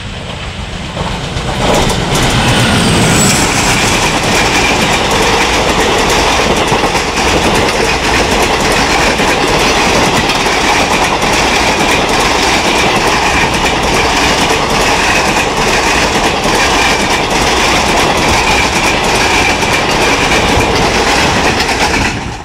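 Express train passing at speed: the WDM3D diesel locomotive's ALCo engine chugging by about two seconds in, then a long, steady run of coaches clattering over the rail joints.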